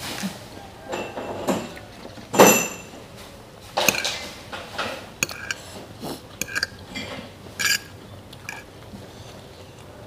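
A metal fork clinking and scraping against a ceramic bowl while scooping glass-noodle salad, making a series of short clinks with a brief ring. The loudest clink comes about two and a half seconds in, followed by a quicker run of clinks.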